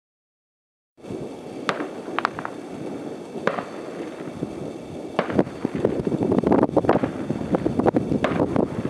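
Many distant fireworks and firecrackers going off at once, starting about a second in: sharp bangs stand out over a continuous crackling din, and they come thicker from about five seconds in.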